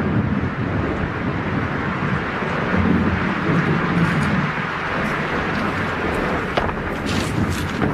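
A steady rumbling, rushing noise with an uneven low rumble, joined by a few short clicks near the end.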